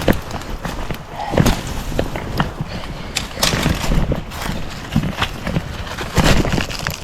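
Footsteps scrambling over rocky creek-side ground and brush: uneven scuffs and knocks, the heaviest about a second and a half in and again near the end.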